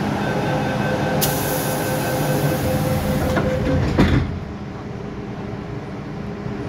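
MTR M-Train at a station stop: a steady door-closing warning tone sounds over the train's hum, with a hiss starting about a second in. The doors shut with a thud about four seconds in, after which the hum is quieter and duller.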